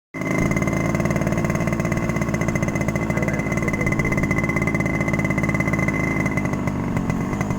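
A small engine running steadily at an even speed, with a fast, regular firing beat.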